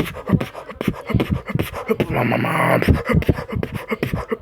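Vocal beatboxing freestyle: a fast run of mouth-made kick, snare and click sounds, with a sustained buzzing hum from about two seconds in to three seconds in.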